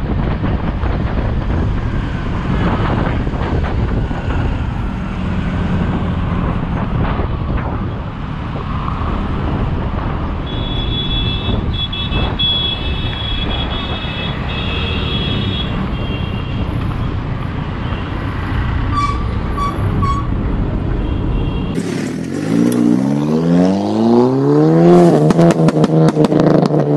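Wind on the microphone and traffic noise while riding close behind a modified Honda Accord with a valvetronic exhaust, with a high steady tone for about five seconds in the middle. About 22 seconds in the sound cuts abruptly to a different recording: a rising pitch that climbs in steps, like an engine accelerating through the gears, followed by a fast regular beat.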